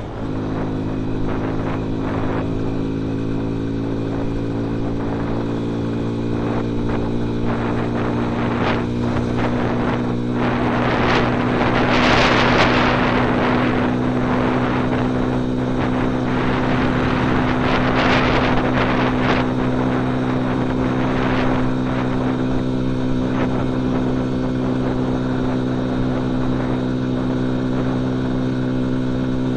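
Dayun Flasher 200 motorcycle engine running at a steady cruising speed, its note holding one pitch, heard from the rider's seat. Rushes of air noise swell about twelve seconds and again about eighteen seconds in.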